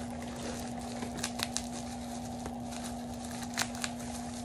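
Plastic bubble wrap crinkling as a small item is unwrapped by hand, with a few sharp crackles about a second and a half in and again near the end. A steady low hum runs underneath.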